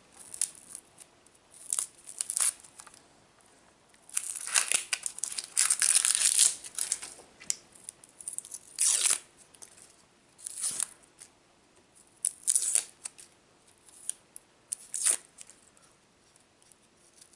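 Freshly sharpened kitchen knife slicing through an onion on a chopping board: a series of crisp cutting strokes, a few short single cuts and a longer run of rapid slicing about four seconds in.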